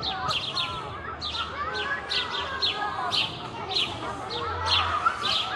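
Birds chirping: a busy run of short, sharp high chirps, a few each second, over other wavering bird calls.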